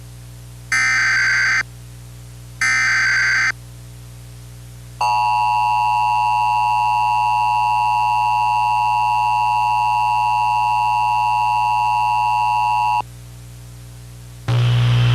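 Emergency Alert System SAME header: two bursts of warbling digital data tones, each about a second long, then a steady attention tone for about eight seconds, marking the start of a tornado warning broadcast. A constant low hum runs underneath, and a louder sound starts just before the end.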